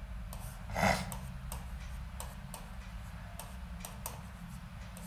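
Chalk writing on a blackboard: a quick, uneven series of light taps and clicks, about three or four a second, with one short scrape a little under a second in.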